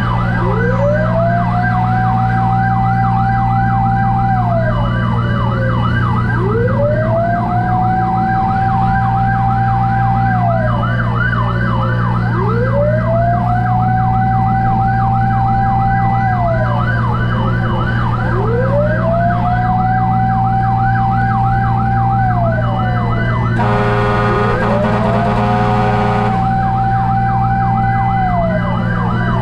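Fire truck sirens sounding together: a fast yelp warbling rapidly over a slow wail that rises, holds and falls about every six seconds, above the steady drone of a running engine. A horn blasts for about two seconds near the end.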